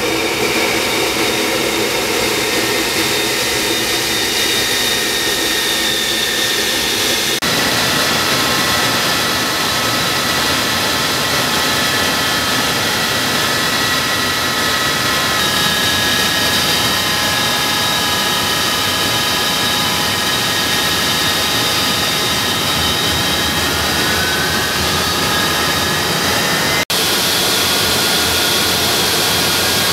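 Avro Vulcan's Rolls-Royce Olympus turbojets running at high power during ground runs: a loud, steady jet rush with high whining tones over it. The tones shift abruptly a few times.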